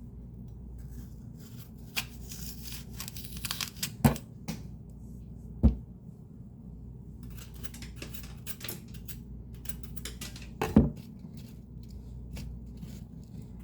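Greens being chopped: bursts of crisp crunching cuts and three loud knocks, over the steady hum of a fan.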